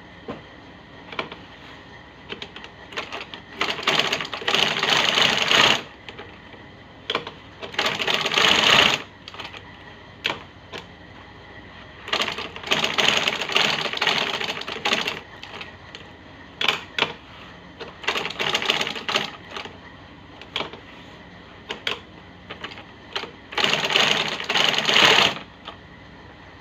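Manual sewing machine stitching a shoe upper in five short runs of rapid ticking, each a second or two long, with scattered single clicks between the runs.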